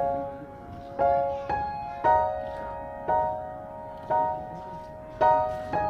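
Background piano music: slow notes and chords struck about once a second, each fading before the next.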